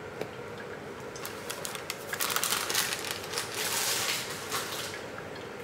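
Crinkling and rustling of a bag of dry pancake mix while one cup is measured out, with light scattered clicks. The rustling thickens from about two seconds in for a couple of seconds.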